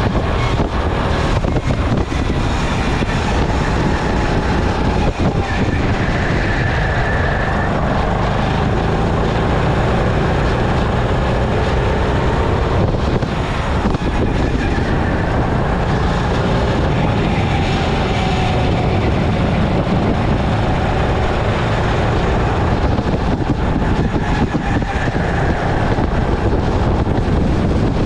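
Onboard sound of a Sodi hire go-kart's engine running at speed around a circuit, its note rising and falling with the throttle through the corners.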